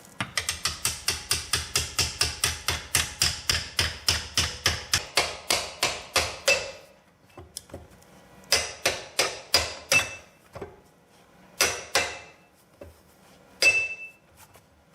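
Rapid metal-on-metal knocking from tools on the freed bolt, about four or five sharp ringing strikes a second for roughly six seconds. It then breaks into a few shorter bursts of the same knocks.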